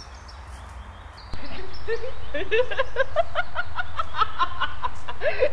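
Children laughing and giggling in quick repeated bursts, breaking in suddenly about a second and a half in after faint outdoor background with a low wind rumble.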